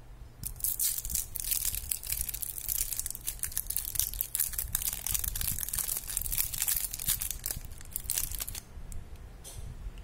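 A twist-wrapped milk soft candy being unwrapped by hand: its plastic wrapper crinkles and crackles as the twisted ends are undone and it is peeled off the candy. The crinkling thins to a few crackles near the end.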